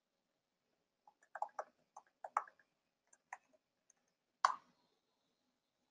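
Computer keyboard keys typed in a quick, uneven run of about ten faint keystrokes, entering a password, then one louder click a second later.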